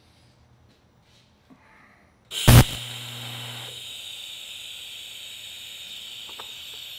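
An electric welding arc strikes about two seconds in with a loud pop, then runs as a steady hiss while a weld is laid on a chopper frame tube.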